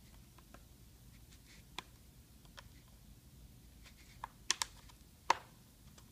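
Plastic laptop screen bezel being pried loose with a credit card: light scratching ticks, then a few sharp clicks about four to five seconds in as its snap clips pop free.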